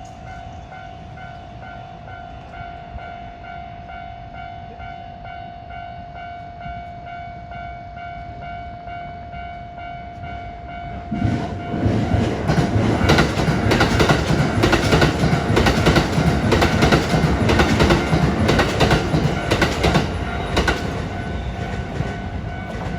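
Japanese level-crossing warning bell sounding steadily with a repeating ring, then about 11 seconds in a train passes at speed, its wheels clattering over rail joints for about ten seconds before fading while the bell keeps sounding.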